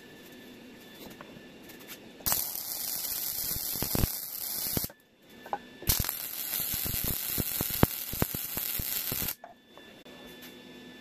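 Lincoln 180 wire-feed welder arc crackling and hissing in two tack welds on a steel rail: one about two and a half seconds long, then after a short pause one about three and a half seconds long. A steady low hum lies between them.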